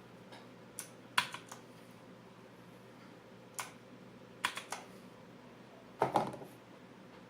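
Kailh blue clicky switches on a MAXTILL Blade Pro mechanical keyboard, pressed sparsely: single key clicks and short clusters of two or three, with pauses between them.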